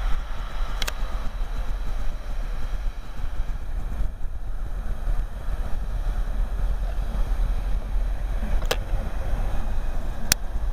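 Wind buffeting the microphone on an open railway platform, a steady low rumble with hiss, broken by three sharp clicks: one about a second in and two near the end.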